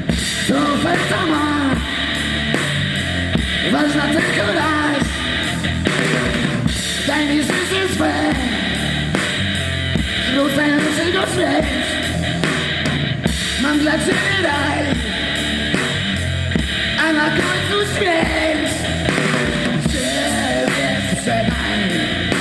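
Live rock band playing: electric guitar, bass guitar and drums, with a voice singing over them.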